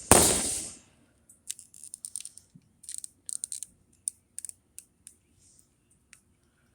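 A loud knock at the start, then a series of small clicks and rattles as the battered plastic casing of a PSP handheld console is handled and pried at.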